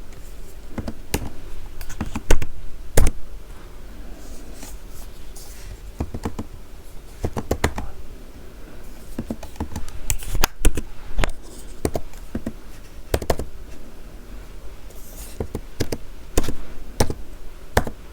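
Typing on a computer keyboard: irregular runs of key clicks, some in quick clusters and some single, with short pauses between.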